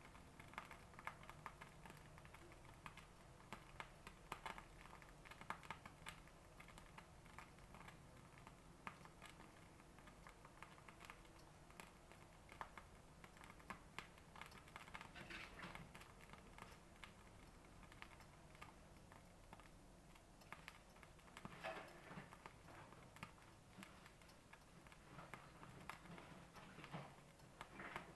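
Near silence with faint, irregular ticking and crackling from a metal pot of milk and cream cheese heating on a stovetop.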